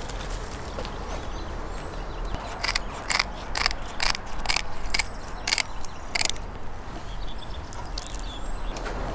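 Scissors snipping through a catfish's fins: about nine sharp snips, roughly two a second, over some four seconds from about two and a half seconds in.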